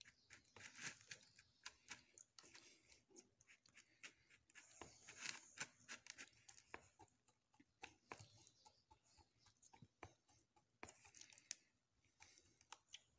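Faint wet squelching with small irregular clicks as a raw whole chicken coated in marinade is pierced with a metal skewer and squeezed by hand.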